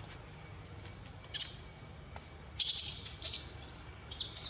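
Steady high-pitched drone of insects, broken by short, sharp high-pitched chirping bursts, one about a second and a half in and a louder cluster around three seconds.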